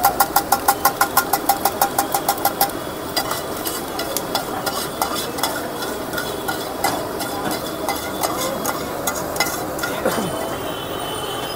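A metal spatula striking a pan rapidly and evenly, about five ringing clanks a second, which stops about three seconds in. Irregular clinks and scraping of the spatula in the pan follow as the omelette is scraped out, over a steady background hum.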